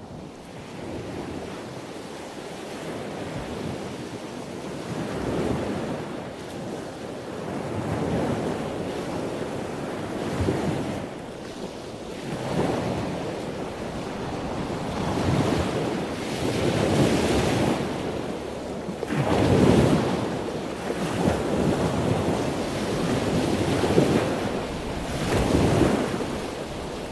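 Ocean waves surging and breaking, a rushing noise that swells and falls every couple of seconds and grows louder over time.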